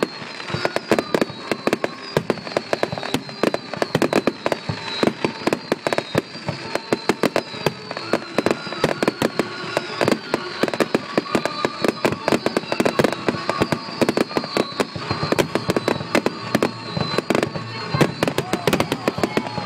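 Fireworks display: a dense, continuous barrage of bangs and crackling from aerial shells bursting several times a second.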